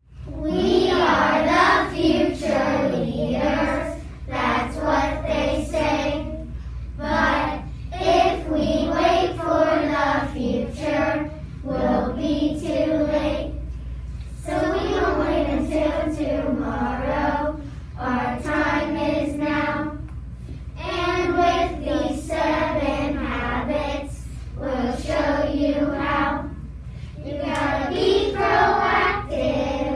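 A group of young children singing together in a run of sung phrases with short breaks between them, over a steady low hum.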